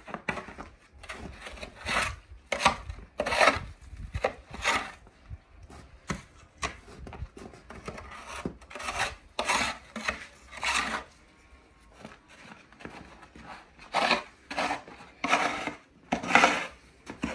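Metal snow shovel scraping snow off a brick path, in repeated short, irregular strokes about once a second.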